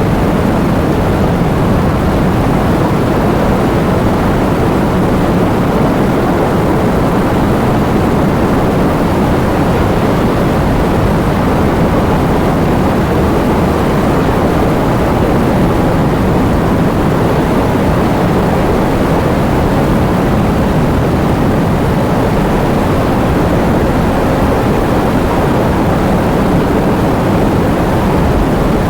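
Heavy rain with strong wind: a loud, steady rushing with a deep rumble and little high hiss, unchanging throughout.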